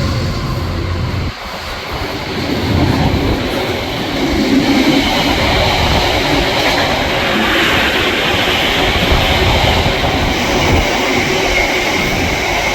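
Freight train wagons passing at speed on steel rails, with rolling wheel noise and clattering over the track. A low diesel engine drone in the first second cuts off abruptly.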